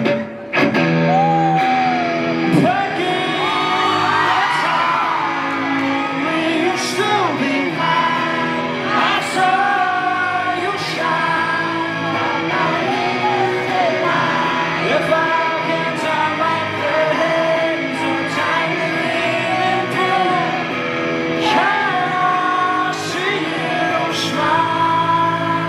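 Live rock band playing in a club hall, with singing and shouts over the full band sound.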